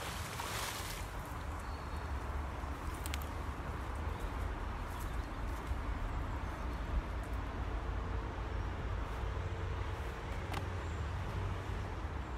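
Steady outdoor background noise with a low rumble, broken by a few faint sharp clicks.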